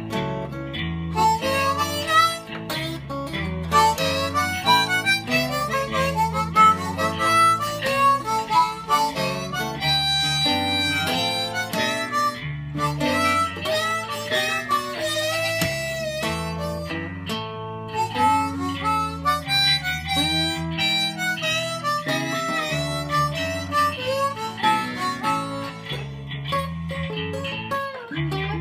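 Blues instrumental break: an acoustic guitar picks a bass-driven rhythm while a harmonica carries the melody with bent notes.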